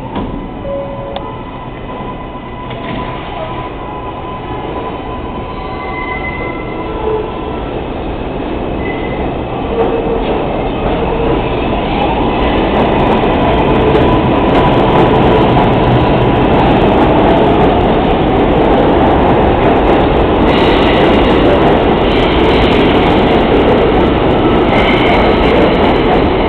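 R142A subway train heard from on board, pulling out and picking up speed: the motor whine and wheel-and-track rumble grow steadily louder over about twelve seconds, then hold at a loud, steady run through the tunnel, with harsher high-pitched rail noise in the last few seconds.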